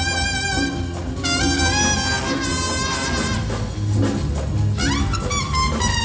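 Jazz trumpet solo over a big-band accompaniment. The trumpet holds long notes, with a quick upward glide to a high note about five seconds in, over a steady bass line.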